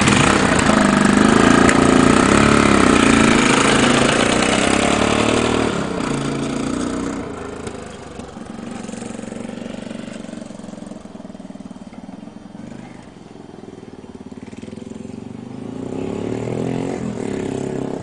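1978 Honda XL250's single-cylinder four-stroke engine on a cold start, bursting into running suddenly and loud for about six seconds. It then fades as the motorcycle rides away, and grows louder again near the end as it comes back.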